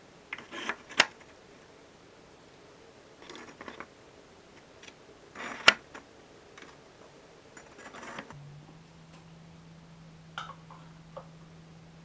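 Workbench handling noise: scattered knocks and clatter as firebrick pieces and parts are moved and set down, the loudest a sharp knock a little before halfway. A low steady hum starts about two-thirds of the way in.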